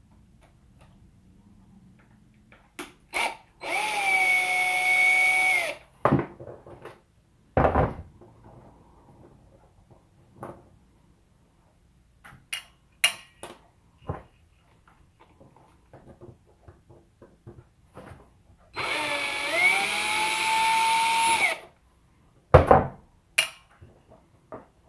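Black+Decker cordless drill running in two short bursts, about 2 s and 3 s long, each spinning up with a rising whine and then holding steady. Clicks and knocks of small plastic parts being handled fall between the runs.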